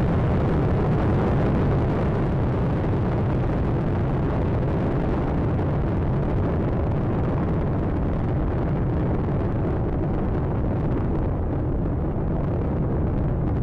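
Space Shuttle Atlantis climbing after liftoff: a steady, loud rumble from its three main engines and two solid rocket boosters, the high end thinning slightly near the end.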